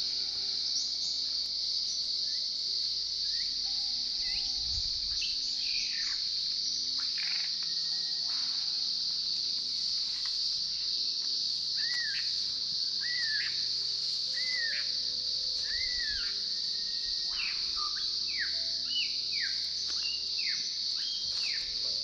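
Forest chorus: a steady high-pitched insect drone, with birds calling over it. The calls are a run of repeated short arching whistles about halfway through and several steep falling sweeps.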